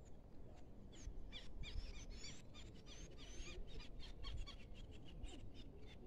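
Birds chirping and twittering, with a busy run of quick gliding chirps in the first half that thins out to scattered calls, over a steady low rumble.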